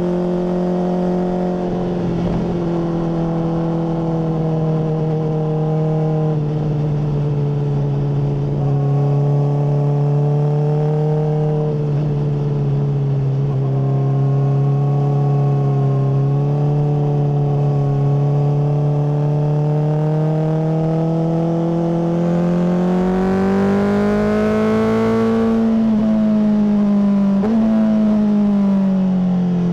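Honda CBR600RR inline-four running through a MIVV full exhaust. The revs are held fairly steady for a long stretch, then climb for a few seconds, drop back, and give a brief blip near the end.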